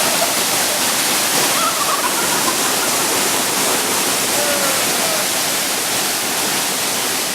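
Waterfall rushing: a loud, steady roar of falling water with no letup.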